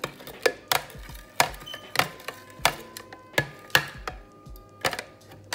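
A spoon clinking against the side of a glass pitcher while stirring brown sugar into apple cider, about two sharp clinks a second.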